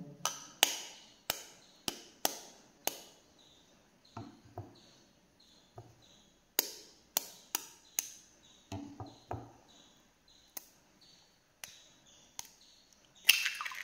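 A table knife's blade tapping on eggshells to crack eggs: sharp separate taps in runs. Near the end comes a louder crackle as a shell is broken open over the bowl.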